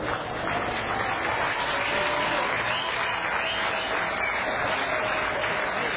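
Crowd of spectators applauding, a dense patter of many hands clapping.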